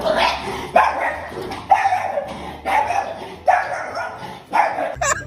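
A dog barking repeatedly, about six barks roughly a second apart.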